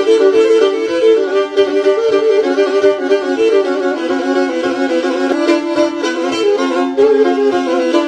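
Black Sea kemençe, a small bowed fiddle, playing a fast horon dance tune as background music, its notes changing quickly and without a break.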